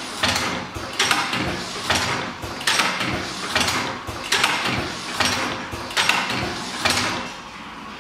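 Pad printing machine's pneumatic mechanism cycling, a sharp stroke sound repeating a little more than once a second, which stops about seven seconds in.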